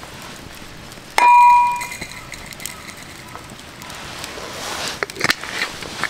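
A single metallic clang about a second in, ringing with a clear tone that fades within a second, followed near the end by rustling handling noise and a few sharp clicks.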